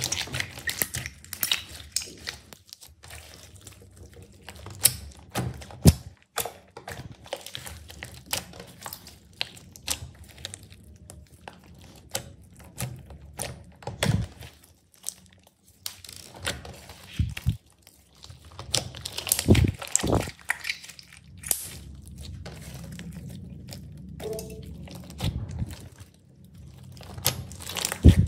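Slime being squished, stretched and folded by hand, giving irregular sticky pops, clicks and thunks with short crinkly stretches.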